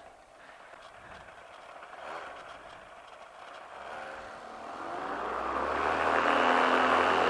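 Paramotor's two-stroke engine, running on a freshly overhauled carburetor, quiet at first and then throttled up about four seconds in, its pitch rising slightly as it grows to a loud, steady run.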